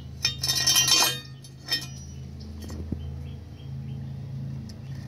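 Steel mower blade being handled on concrete, clinking: a burst of ringing metallic clinks in the first second, then a few light taps, over a steady low hum.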